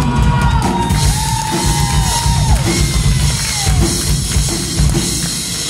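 Live rock band playing: a drum kit with bass drum and snare, electric guitars and bass, and a held lead line that bends up and down in pitch.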